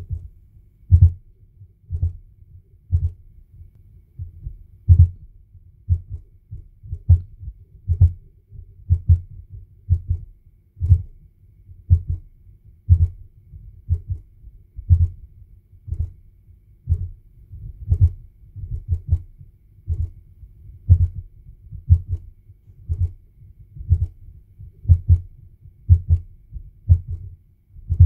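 Demodulated output of a DCF77 77.5 kHz time-signal receiver module, heard as a low thump once a second. Each pulse is either short (100 ms) or long (200 ms), and the two lengths are the binary zeros and ones that encode the time and date for radio-controlled clocks.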